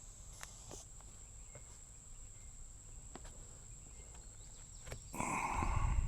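Crickets making a steady high-pitched drone, with a few faint clicks and a louder rough sound lasting about a second near the end.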